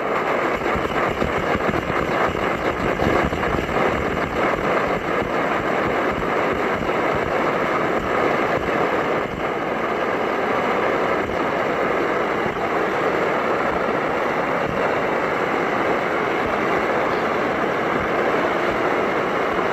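Kovea Booster+1 dual-fuel stove burner running on pressurised liquid fuel (white gas), a loud, steady rushing noise with the fuel line fully open. The priming flame has preheated the fuel line, so the fuel now vaporises and burns with a blue flame.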